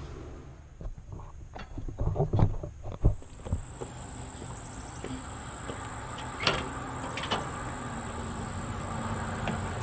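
Car door handled and shut: a run of clicks and knocks, then a hard thump about three seconds in. After that a steady low hum with a few more sharp clicks, before any cranking starts.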